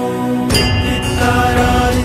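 Indian-style background song with a long-held, chant-like sung note; a drum beat comes in about half a second in.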